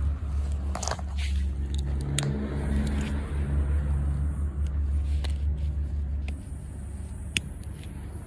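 Low rumble of a motor vehicle's engine that drops away about six seconds in, with scattered sharp snaps and clicks over it.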